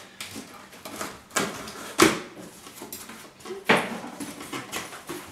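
Packing tape on a cardboard box being cut with scissors and the flaps pulled open: a handful of sharp rips and cardboard scrapes, the loudest about two seconds in.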